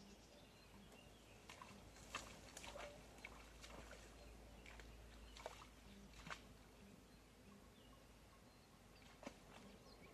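Near silence: faint outdoor quiet with a handful of short, faint clicks scattered through it, the strongest about two seconds in and again around five and a half and six seconds.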